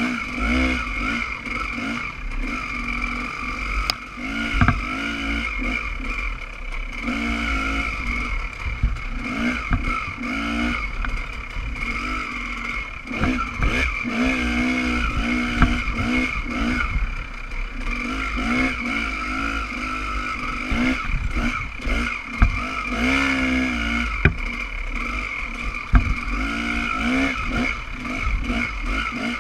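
Dirt bike engine revving up and down as it rides an off-road trail, pitch rising and falling many times with the throttle, over a low rumble of wind on the microphone.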